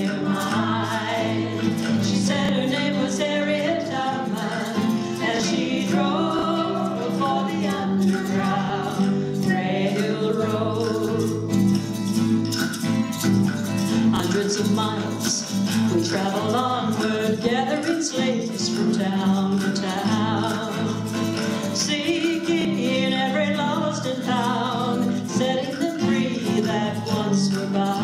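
Live folk song: women's voices singing over acoustic guitar strumming, with hand percussion keeping time.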